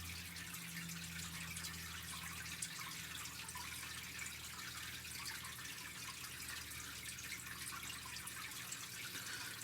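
Faint steady hiss of a recording's background noise, with a low hum that fades out about three seconds in.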